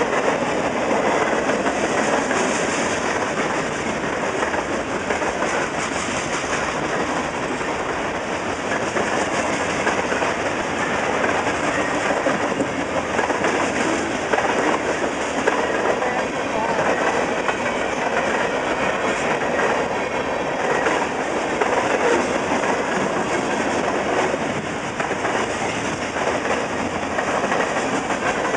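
CN freight train's cars rolling steadily past, steel wheels running on the rails.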